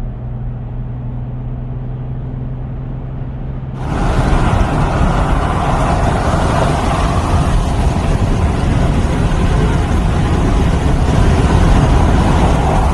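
Land Rover Discovery driving: a steady low engine hum, then about four seconds in a sudden change to louder, rushing road and engine noise.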